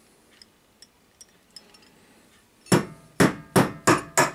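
A hammer tapping on metal: a few faint clicks, then from just over halfway a quick run of about five loud ringing strikes, about three a second, as the stay rod is tapped through the copper model boiler.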